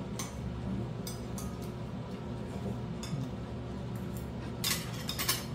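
Spoon and chopsticks clinking against ceramic bowls and dishes while eating: a few scattered clinks, then a quick, louder cluster near the end, over a steady low room hum.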